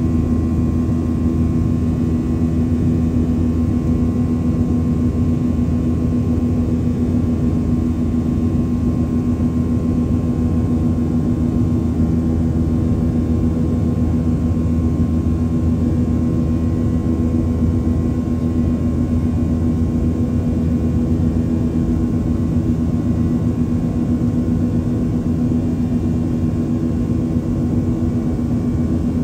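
Cabin noise of a Boeing 737-800 climbing after takeoff, heard from a window seat beside its CFM56-7B turbofan engine: a steady drone with a strong low hum and faint steady whining tones above it.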